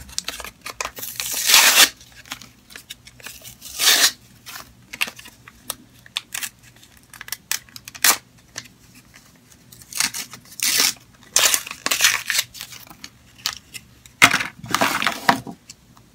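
Plastic and cardboard packaging of a lip balm three-pack being handled and opened: irregular crinkling and tearing in short bursts, the loudest cluster near the end.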